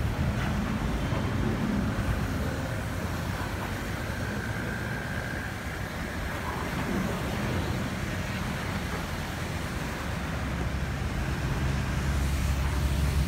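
Hyundai Verna's 1.6 CRDi diesel engine idling steadily, freshly back together after head gasket work; the low hum grows a little louder near the end.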